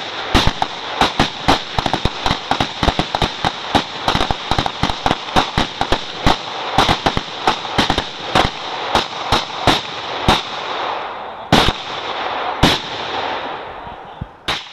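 A long string of firecrackers going off: rapid sharp cracks, several a second, over a steady crackling hiss. It thins out about eleven seconds in, leaving a few louder single bangs near the end.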